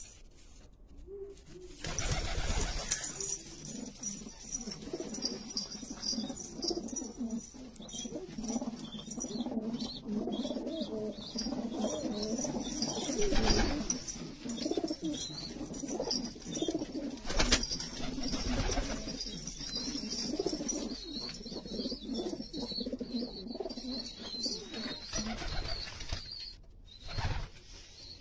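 A flock of domestic pigeons cooing together, a continuous overlapping murmur of low coos, with a few brief bursts of wing flapping as birds fly up.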